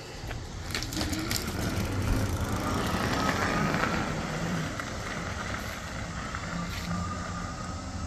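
POLEEJIEK PLJ2008 dual-motor fat-tire electric bike riding off under power, its hub motors giving a faint whine that rises, holds and sags near the end, over tyre and road noise. The freshly replaced rear hub motor is running without fault.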